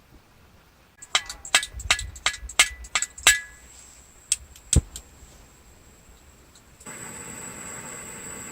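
Metal camping gear clinking: a quick run of sharp, ringing clinks lasting about two seconds, then two single clinks. Near the end a steady hiss starts.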